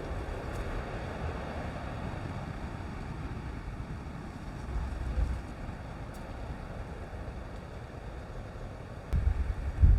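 Wind buffeting the microphone: a steady low rumble that swells about five seconds in and gets much stronger in gusts near the end.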